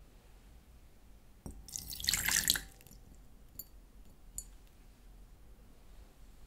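Water poured into a small bowl for about a second, followed by a couple of faint drips or clicks.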